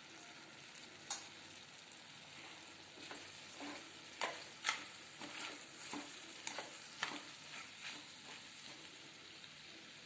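Potato and tomato mixture sizzling gently in oil in a kadhai while a spoon stirs it, scraping and clicking against the pan, with the clicks most frequent and loudest in the middle.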